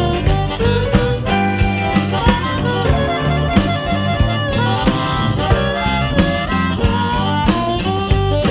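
Electric blues band playing an instrumental passage: electric guitar lines over bass and drums, with a steady beat.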